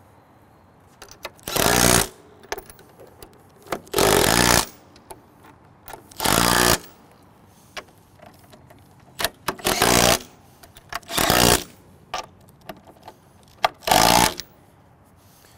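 Cordless impact driver running in six short bursts of about half a second each, driving home the bolts that hold a door block in a steel forcible-entry training door.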